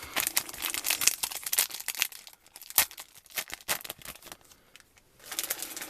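Foil Yu-Gi-Oh booster-pack wrappers crinkling and tearing as packs are handled and opened: a dense run of small crackles that thins out, stops briefly about five seconds in, then picks up again.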